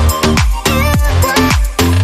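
Background electronic dance music with a steady, fast kick-drum beat, bass and a synth melody.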